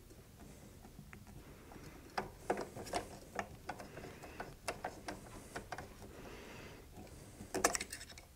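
Small irregular metal clicks and ticks of a hex driver turning in the propeller hub screws of a Freefly Astro drone as they are tightened to about 1.5 newton metres. The clicks begin about two seconds in, with a quick burst of louder clicks near the end.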